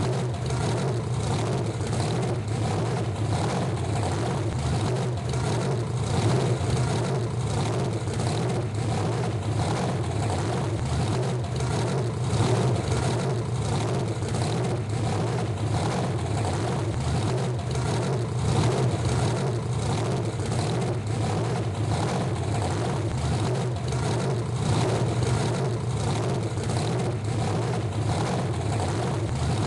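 Monster truck engine idling steadily with a deep, even pulse and slight swells in level.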